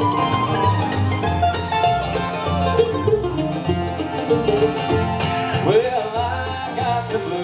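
Bluegrass band of fiddle, mandolin, upright bass, acoustic guitars and dobro playing an instrumental passage between verses, over a steady walking bass, with sliding notes about five seconds in.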